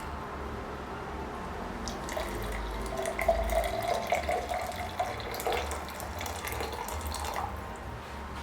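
Water running from a tap into a sink for a few seconds, with small knocks.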